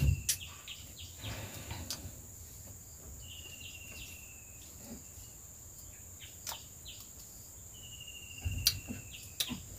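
Insects giving a steady high-pitched drone, with a short chirping trill repeated three times about five seconds apart. A few scattered sharp knocks and clicks are heard.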